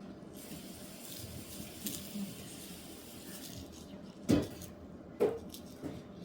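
Kitchenware clattering: two sharp knocks nearly a second apart, then a lighter one.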